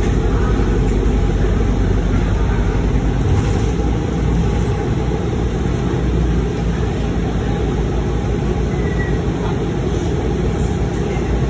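Ride inside a New Flyer XDE40 diesel-electric hybrid city bus under way: a steady low drone of the drivetrain with road noise, and a few faint light rattles.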